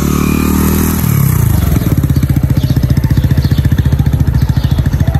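Motorcycle engine running close by: a steady engine note that shifts in pitch about a second in, then settles into a fast, even pulsing idle.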